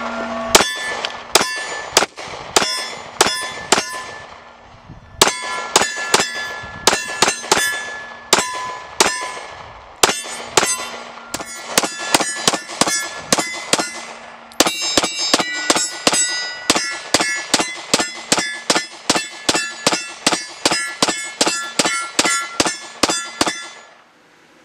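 Faxon FX-19 Patriot 9mm pistol fired in quick strings at steel plate targets, each shot followed by the clang of steel ringing. The shots come about two a second, pause briefly, then come faster through the second half.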